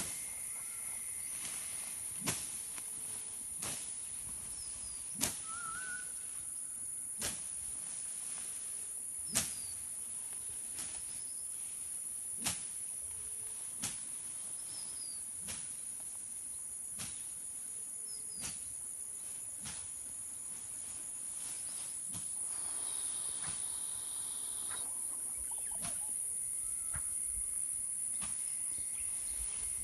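Steady high-pitched insect drone with a few short faint bird chirps, broken by sharp clicks about every one and a half to two seconds.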